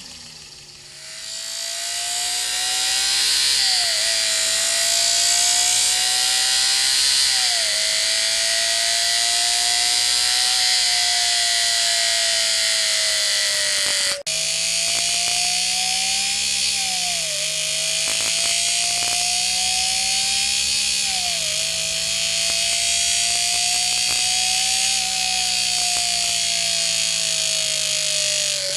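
Paper strip slapping the four notches of a motor-spun cardboard disc, a homemade engine-sound maker buzzing like a high-revving four-cylinder engine. It spins up about a second in, then holds a high whine over a hiss; the pitch creeps up and drops sharply several times, with a brief break about halfway.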